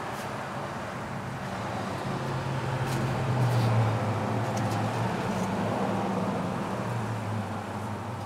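A motor vehicle's engine humming over road noise, growing louder about three to four seconds in, then easing off.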